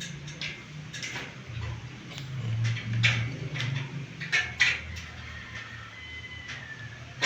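Irregular light knocks and clinks of hand tools and hardware being handled while working on a bed base, over a low background hum.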